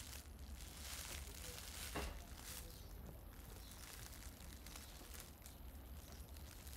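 Quiet outdoor background noise with faint rustling and light ticks, and one sharper click about two seconds in.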